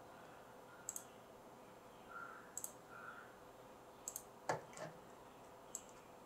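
Computer mouse clicking: about six short, scattered clicks, the loudest about four and a half seconds in, over faint room noise.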